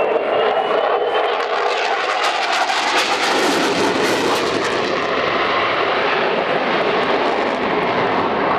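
F/A-18 Hornet's twin jet engines making a loud, steady roar as the fighter flies a display. A thin rising whine runs through the first second, and a crackling edge comes in from about two to five seconds in.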